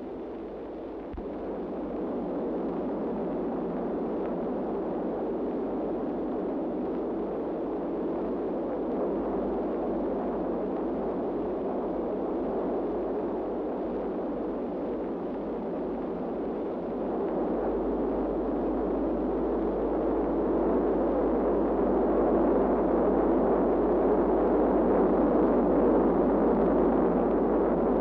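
Steady rumble of submarine machinery, growing louder about two-thirds of the way through.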